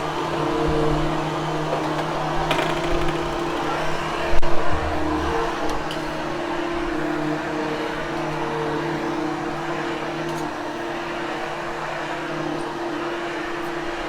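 Hoover Hushtone upright vacuum cleaner running steadily over carpet, a constant motor hum with an airy rush, with a brief louder knock about four and a half seconds in.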